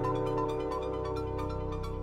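Electronic background music: sustained synthesizer chords over a steady, quick beat.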